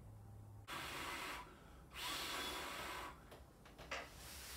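A person breathing quietly, with two soft breaths, followed by a few faint clicks near the end.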